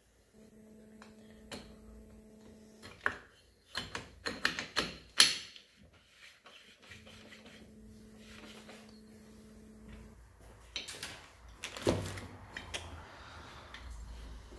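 Metal clutch parts of a Mondial Drift 250 motorcycle engine clicking and clinking as they are worked by hand into the clutch housing, with two flurries of sharp clinks, the loudest about five seconds in.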